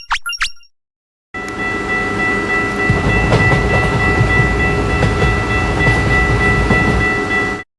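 A train running, a steady rumble with faint clacks and a long held horn-like chord on top, starting about a second in and cutting off suddenly just before the end. At the very start, the last few quick bell dings.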